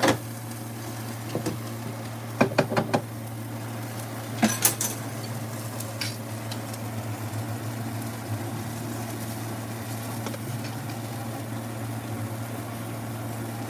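Low sizzle of salsa-topped tortillas frying on a cast-iron griddle over a steady hum, with a knock at the start and a few clinks and scrapes of a metal spoon against a steel pot about two and a half and four and a half seconds in.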